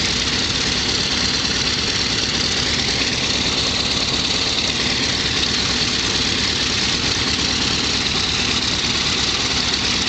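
F4U-1D Corsair's Pratt & Whitney R-2800 18-cylinder radial engine idling steadily, propeller turning.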